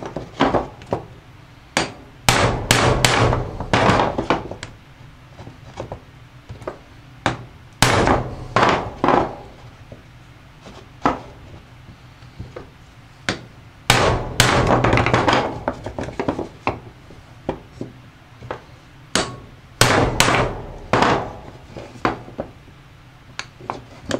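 Hammer blows on a bearing driver rod, knocking a stuck, worn-out rear carrier hub bearing out of a Polaris Outlaw's aluminum hub housing. The blows come in bursts of rapid strikes with short pauses between.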